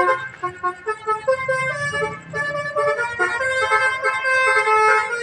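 Telolet bus horn: a multi-tone air horn playing a quick melody of short, changing notes, several tones sounding together.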